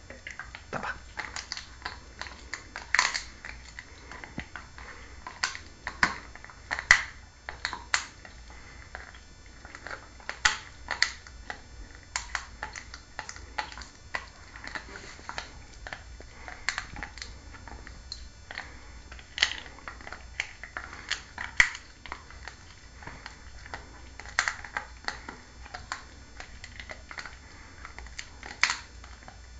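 A dog chewing on a mobile phone: irregular sharp clicks and crunches of teeth on the phone's casing, a few of them much louder than the rest.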